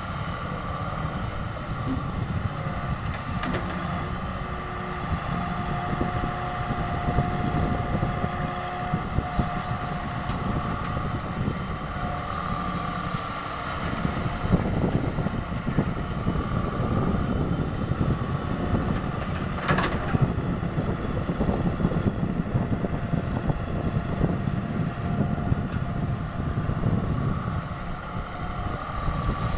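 Daewoo Solar 130 wheeled excavator's diesel engine running steadily under load as it digs and dumps soil, with a whining tone from the machine rising and falling as the arm and bucket work. A single sharp knock comes about two-thirds of the way through.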